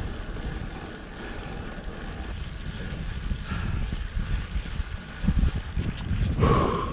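Wind buffeting the microphone of a rider's camera during a road-bike ride, a gusty low rumble. Near the end a brief high-pitched tone sounds over a louder gust.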